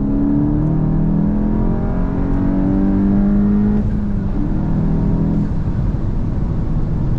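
Mk8 Volkswagen Golf GTI's turbocharged 2.0-litre four-cylinder engine, on an E85 tune, pulling hard with its pitch rising for about four seconds. It then drops at a gear change and settles to a lower, steady drone.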